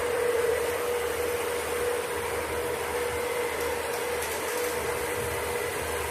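Steady whir of the small built-in fans of an air-conditioned (fan-cooled) work jacket, with a constant mid-pitched hum under an even rush of air.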